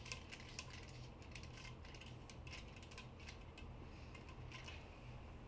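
Faint, irregular clicking and scraping of a threaded hose-end fitting being screwed together by hand on the end of a braided PTFE fuel hose.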